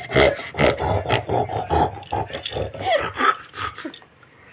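Rapid bursts of laughter and playful vocal noises, about four a second, stopping shortly before the end.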